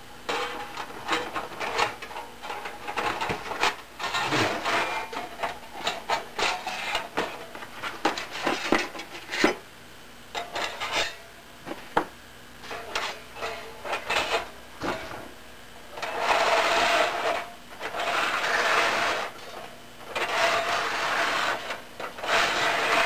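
Thin sheet-metal panels of a flat-pack firebox stove being handled and fitted together: many light clinks and taps, then three long rasping scrapes near the end as plates slide against each other and over cardboard.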